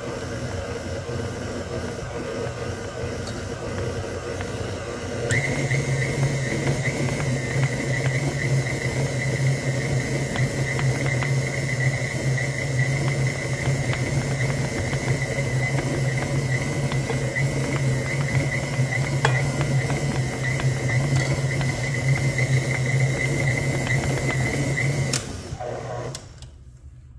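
Old KitchenAid stand mixer's motor running steadily as it mixes a stiff, dry bread dough. About five seconds in it steps up to a louder run with a high whine over the hum, then stops near the end.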